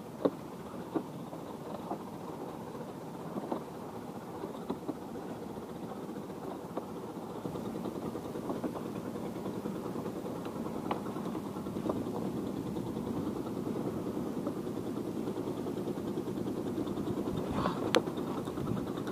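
A motorboat engine running steadily, growing a little louder about halfway through, with a few faint clicks over it.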